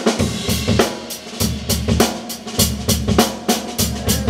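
Live band's drum kit playing a steady funk groove, kick drum and snare hits repeating evenly, with a low bass line underneath.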